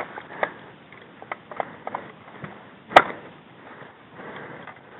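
Footsteps brushing and crunching through tall dry grass and weeds, with scattered small snaps. One sharp, loud crack about three seconds in.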